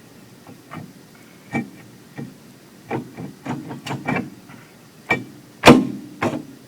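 Irregular metal clinks and knocks as a brake rotor is worked onto the rear wheel hub over the parking-brake shoes and turned to line up its retaining-screw hole, with one heavier clunk near the end.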